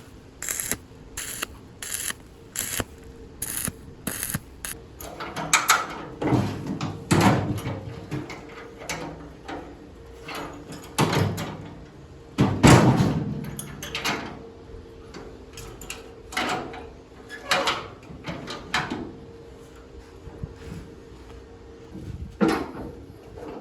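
Hand tools working on metal parts: a run of regular clicks for the first few seconds, then heavier, uneven knocks and scrapes. A faint steady hum runs underneath.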